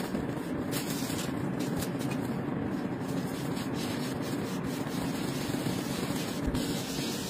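Cake scraper rubbing along the cream-covered sides of a layer cake as it is smoothed, over a steady background noise.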